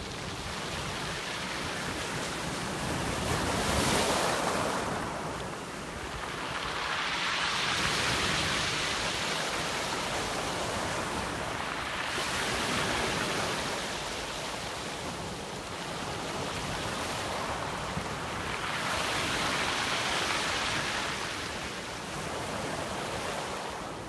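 Sea waves breaking and washing up over a pebble beach, the surf swelling and fading about four times.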